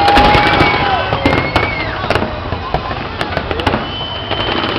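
Aerial fireworks bursting: many sharp bangs and crackles in quick succession, loudest in the first moments.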